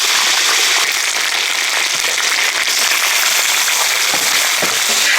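Chopped chicken pieces sizzling and crackling steadily in a hot oiled wok as they are stir-fried.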